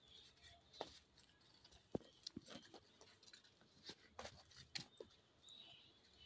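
Near silence broken by a handful of faint, short taps and scuffs, scattered irregularly.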